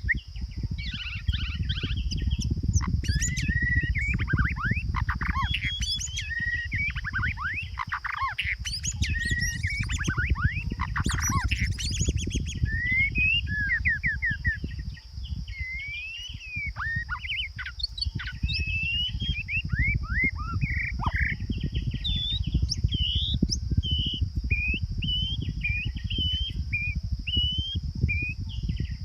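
Songbirds singing dense, continuous runs of quick chirps and whistles that rise and fall in pitch, over a steady high hiss and a low rumbling noise.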